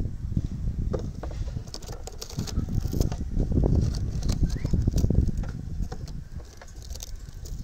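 Handling noise as a LiPo battery pack is pushed into the battery bay of a 3D-printed plastic boat hull and strapped down: scattered clicks, taps and rubbing of the pack and strap against the plastic, over a steady low rumble.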